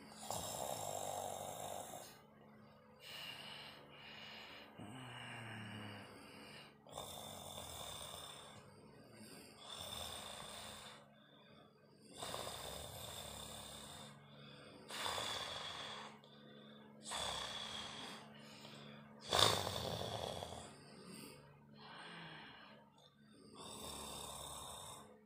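Snoring in rasping breaths that repeat about every two seconds, with short pauses between them; the loudest snore comes about three-quarters of the way through.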